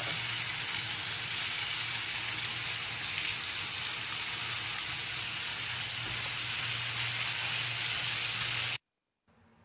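Stuffed chicken breasts sizzling steadily in olive oil in a hot pan, ending abruptly near the end.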